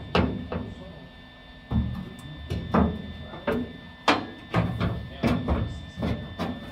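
A series of irregular metallic knocks and clanks, about one or two a second, from a thin metal side panel and rod bumping against the car's steel trunk body as they are positioned by hand.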